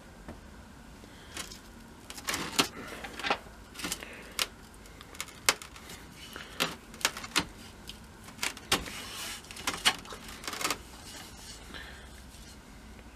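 Irregular light metallic clicks and taps as a piece of thin, rusty pierced sheet metal is handled on a workbench.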